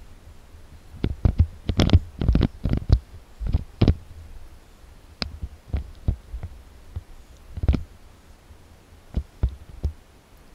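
Footsteps and scuffs of someone walking over a rocky dirt slope through dry brush, heard as irregular low thumps close to the microphone.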